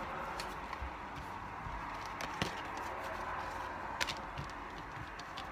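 Tarot cards being handled and laid on a table: a few faint taps, about a second or two apart, over a steady background hiss.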